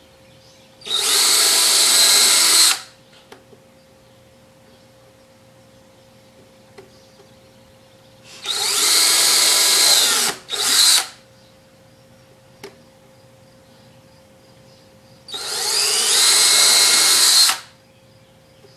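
Cordless drill boring holes into wood: three runs of about two seconds each with long pauses between, the second followed by a brief extra spurt.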